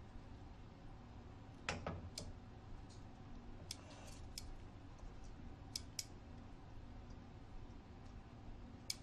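Metal kitchen tongs clicking against a stainless steel colander while lifting pasta out of it. The clicks are light and sparse, about eight of them at irregular intervals.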